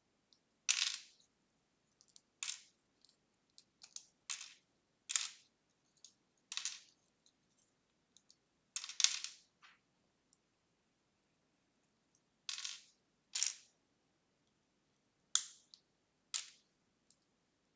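Hard plastic LEGO pieces clicking as a small set is pulled apart and the parts are set down for sorting: about ten sharp, separate clicks at irregular intervals.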